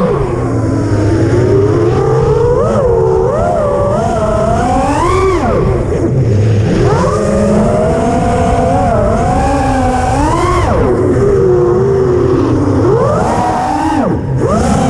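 FPV quadcopter's electric motors and propellers whining, the pitch swooping up and down constantly as the throttle changes, over a low rushing noise.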